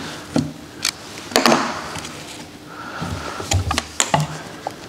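Scattered clicks and knocks of plastic and metal as a Phillips screwdriver works a screw on a removed Mercedes W211 door lock and the lock housing is handled. The loudest cluster of clicks comes about a second and a half in, with a few dull thumps a little after the middle.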